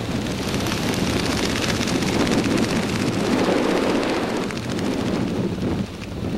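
Wind rushing over the camera's microphone as a skydiver under an open parachute canopy flies the final approach to landing; the rush swells through the middle and eases near the end.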